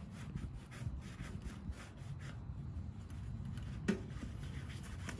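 Hand rubbing and scrubbing at the door glass of a small tent wood stove, a quick run of short scraping strokes, with a single sharper click or knock about four seconds in.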